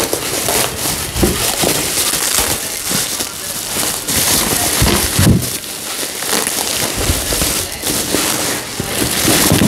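Plastic bubble wrap crinkling and crackling as it is handled and pulled open by hand, with a few dull thumps of handling in the cardboard box.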